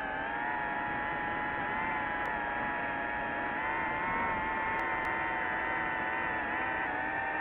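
DJI FPV drone's motors and propellers whining steadily in flight, the pitch wavering slightly.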